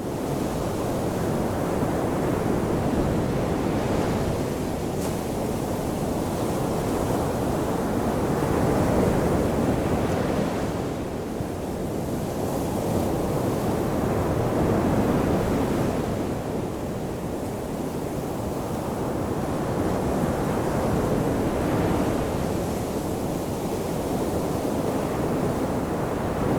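Ocean surf washing onto a shore as a continuous rushing wash that swells and eases with each wave, about every six seconds.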